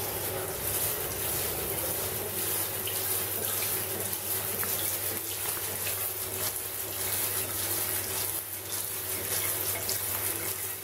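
Shower running: water spraying steadily from a wall-mounted shower head and splashing in the stall, with a steady low hum underneath.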